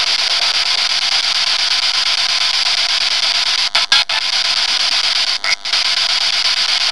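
Spirit box static: the rapid radio-station sweep gives a loud, steady hiss, thin and cut off at the low end as if heard over a phone line. It drops out briefly twice, about four seconds in and again about five and a half seconds in.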